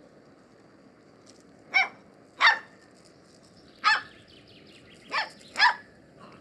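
Young puppy barking: five short, high-pitched yaps, two close together, a single one, then two more close together.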